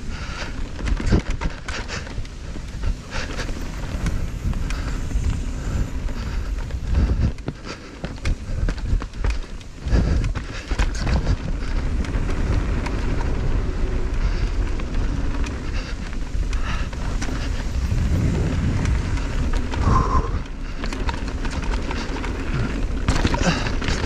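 Mountain bike, an Intense M16, riding fast down a dirt trail: a steady rumble of tyres and wind on the microphone, broken by many quick clatters and knocks as the bike hits rocks and roots.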